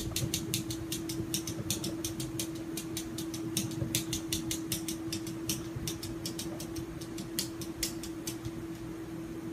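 A cat's claws tapping and scratching at mirror glass as it paws at its reflection: quick, light, irregular clicks, several a second, over a steady hum.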